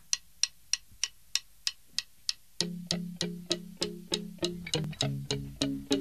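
Instrumental intro of a rock song: a ticking click keeps a steady beat at about three a second, and about two and a half seconds in, plucked guitar and bass notes come in on every beat.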